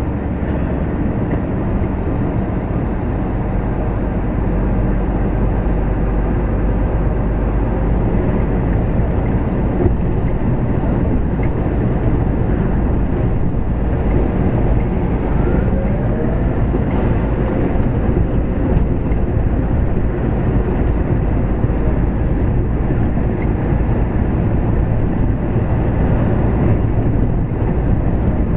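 A lorry's diesel engine and tyres running steadily at low speed, a constant low rumble heard from inside the cab.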